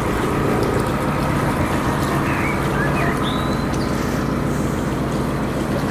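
Narrowboat engine running steadily, a constant drone while the boat is under way.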